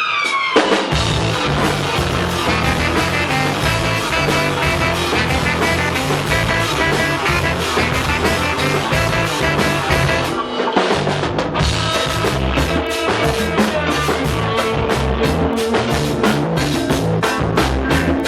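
Reggae band playing an instrumental intro, drum kit and bass to the fore, dropping out briefly about ten seconds in before the full band comes back. A falling siren sound effect fades out just as the band enters.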